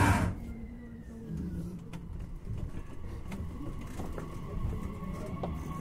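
JR Kyushu 817-series electric train (motor car KuMoHa 817-1009) starting off: a sharp burst of air hiss at the start, then its VVVF inverter drive whines over the low rumble of the running gear, a thin tone that glides down and then holds steady.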